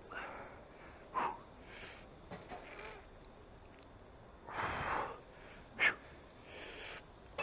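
A man grunting and breathing hard with effort as he strains through heavy reps to failure on a chest press machine: several short separate bursts, with a longer one about two-thirds of the way in.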